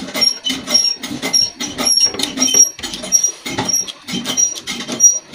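Close-up chewing and lip-smacking while eating rice and chicken by hand, a quick run of wet smacks about two to three a second.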